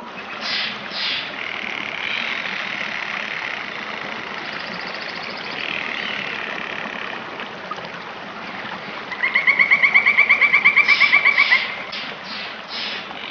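Birds calling over a steady rushing noise, with short chirps and, about nine seconds in, a loud rapid trill of about seven notes a second lasting a couple of seconds.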